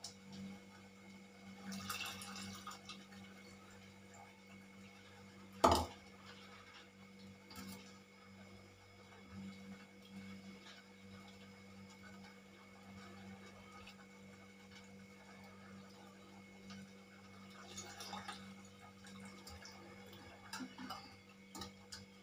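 Kitchen utensil handling: one sharp metal clink about six seconds in and a few softer clicks and scrapes of steel vessels, over a steady low hum.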